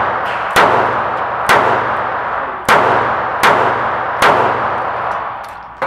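Taurus PT738 TCP .380 ACP pocket pistol fired five times, roughly a second apart at an uneven pace. Each shot rings on in the long reverberation of an indoor range.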